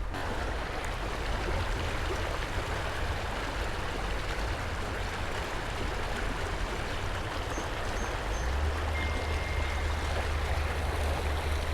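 Creek water running steadily, with a low rumble underneath that grows a little stronger near the end.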